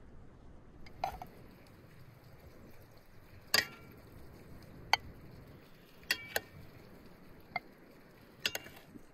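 Metal serving spoon clinking and scraping against plates as stew is dished out: about seven sharp clinks spread over the few seconds, a few with a short ringing tone.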